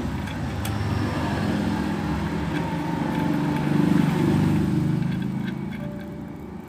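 A motor vehicle's engine running by, growing louder to a peak about four seconds in and then fading away.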